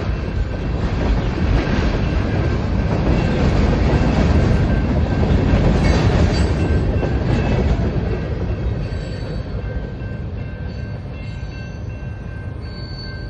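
A train rolling past, a heavy rumble of wheels on rail with some clicking over the joints, easing off in the last few seconds as it moves away.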